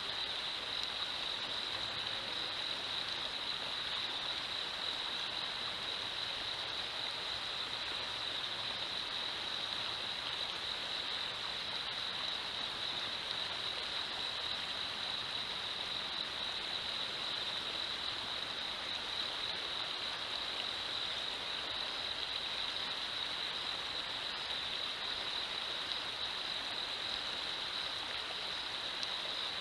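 River water rushing steadily over a shallow, rocky riffle, with a steady high-pitched note running through the rush.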